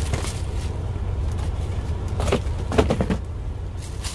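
Clear plastic packaging crinkling and rustling as it is handled, in two short bursts through the middle, over a steady low engine rumble.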